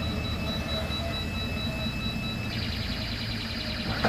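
A heavy truck's diesel engine running low and steady under a high-pitched, rapidly pulsing electronic warning beep. About two and a half seconds in, the beep changes to a buzzier, faster-pulsing pattern.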